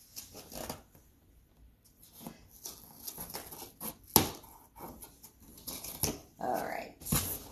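Cardboard shipping box being opened by hand: scattered clicks, taps and rustles of tape and cardboard, the sharpest click about four seconds in, with a short rising squeak a little after six seconds.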